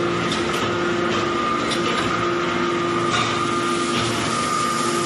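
Hydraulic metal-chip briquetting press running: a steady machine hum with two held tones, and a few light clicks scattered through.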